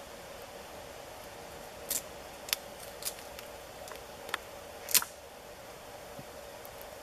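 Dry wood crackling and snapping at a small campfire: five sharp, brief clicks at uneven intervals, the loudest about five seconds in, over a faint steady hum.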